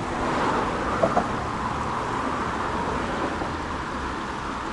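Road traffic noise from cars going by on the road alongside, one passing louder in the first second and a half. Two short taps about a second in.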